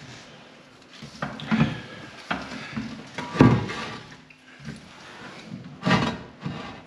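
Knocks and scrapes of a toilet pan being worked loose and pulled forward from the wall, several separate bumps with the loudest about three and a half seconds in and another near six seconds.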